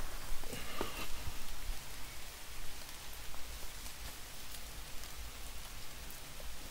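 Steady hiss of rain falling on the forest leaves and rock, with a few faint clicks in the first second.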